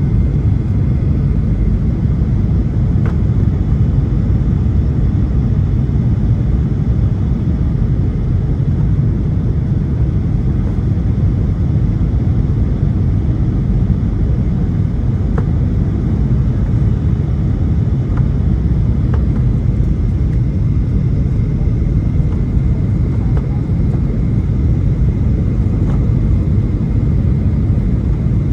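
Steady low rumble of the CFM56 engines and airflow heard inside the cabin of a Boeing 737-800 descending on approach, with a faint high steady whine.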